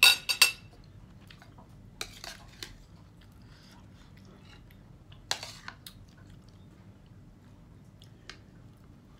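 A spoon clinking against a bowl while eating noodle soup: a quick cluster of loud clinks at the start, a few more about two seconds in, one about five seconds in and a faint one near the end.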